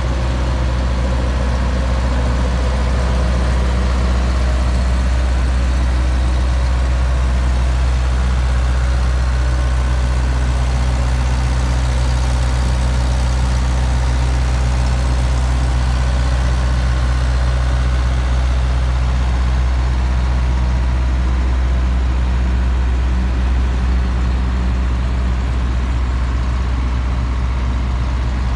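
Heavy diesel engine of a semi truck pulling a cement spreader tanker, running steadily at low revs with a deep even hum.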